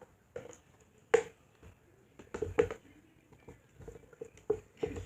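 Handling noises: a scattering of short taps, clicks and squishes as small toys and their packaging are handled.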